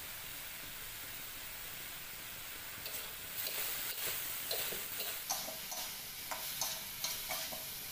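Vegetable stir-fry sizzling in an aluminium wok with a steady hiss; from about three seconds in, a metal spatula scrapes and clinks against the wok in quick strokes as the food is tossed.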